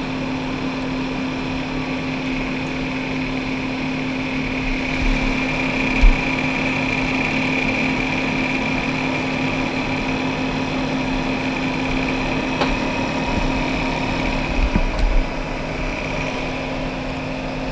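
Desktop PC's fans and CPU cooler running, a steady whirring hum with a higher whine above it. A couple of soft knocks about six seconds in and again near fifteen seconds.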